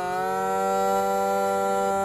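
Scottish bagpipes playing a long held note over a steady drone. The pitch sags slightly at the start, then holds.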